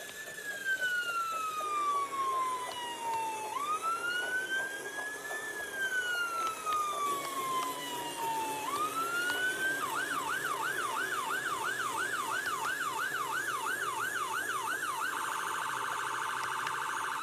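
Electronic emergency-vehicle siren: a slow wail that rises quickly and falls away about every three and a half seconds, switching about ten seconds in to a fast yelp of two to three sweeps a second, then to a rapid warble near the end.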